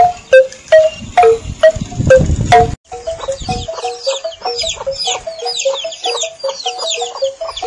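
Wind-driven Balinese bamboo noisemaker (pindekan cungklik), a puppet figure striking tuned bamboo tubes in an alternating two-note knocking pattern, about three strikes a second. A low rumble of wind on the microphone lies under the first three seconds; after that the knocking is quieter and quicker, with many high chirps above it.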